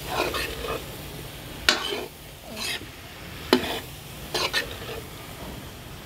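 Steel spoon scraping and knocking against a metal kadhai as cubed boiled potatoes are stirred through a spice masala, with a steady sizzle of frying underneath. About five separate scrapes, the sharpest near two seconds and three and a half seconds in.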